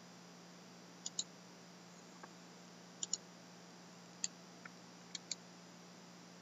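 Computer mouse clicking, mostly in quick pairs like double-clicks, about four times over a few seconds. A faint steady hum runs underneath.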